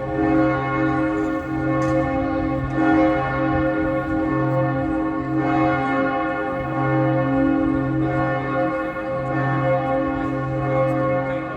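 Several large church bells pealing together, their tones overlapping in a continuous ring.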